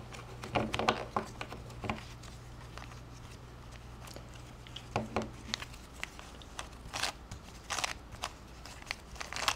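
A plastic mirror cube puzzle being twisted by hand. Its layers click and scrape in scattered bursts as they turn, with a quieter pause in the middle.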